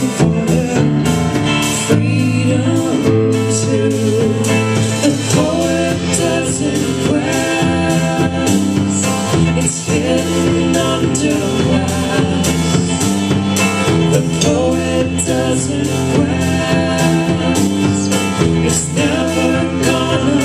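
A folk-pop band playing live with a steady beat: strummed acoustic guitar, electric bass, cello and drums, with singing.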